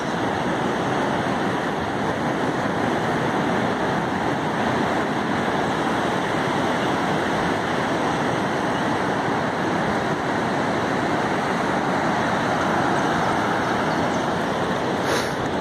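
Ocean surf breaking along a sandy beach: a steady, unbroken rush of waves.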